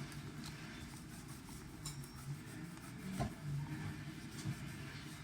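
Small clicks and faint scratches from handling a phone frame at a workbench, with one sharper click about three seconds in, over a steady low background hum.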